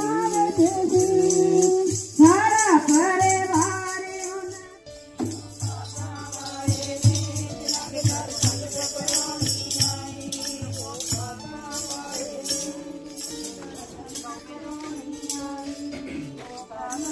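A group of Sikh devotees singing devotional hymns (kirtan), with jingling hand percussion keeping a steady beat. A strong lead voice carries the first few seconds. After that the singing falls back to a quieter group chorus while the jingling goes on.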